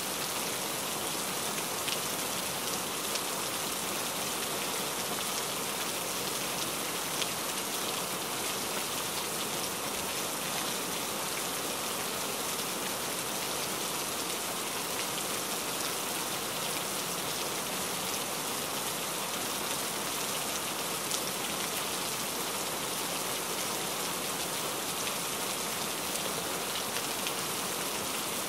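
Steady rain falling, an even hiss with a few sharper drop ticks here and there.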